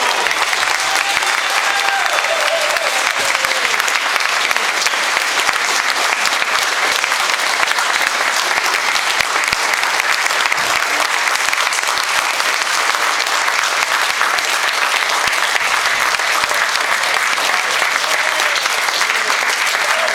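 Large audience applauding, dense and unbroken.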